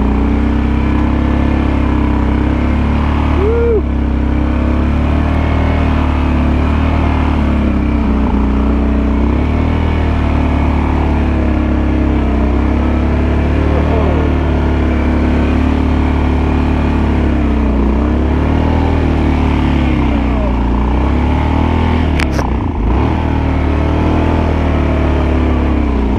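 Kawasaki Brute Force 750 ATV's V-twin engine running steadily under load while it plows snow, its pitch wavering slightly. There is a short, sharp knock near the end.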